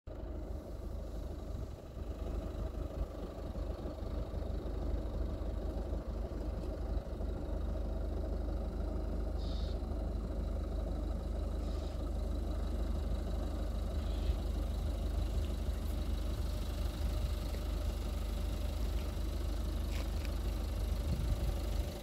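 Wind buffeting the microphone with a deep, unsteady rumble.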